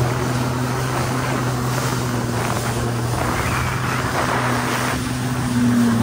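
Jet ski engine running steadily at speed: a low, even hum under the rush of water and wind.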